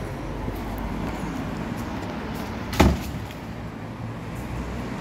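A heavy wooden entrance door shuts with a single loud knock and thud about three seconds in, over a steady low rumble of street traffic.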